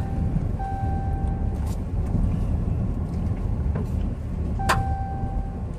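Car driving down a street, heard from inside the cabin: a steady low rumble of engine and road noise, with a thin steady whine that comes and goes and a few light clicks.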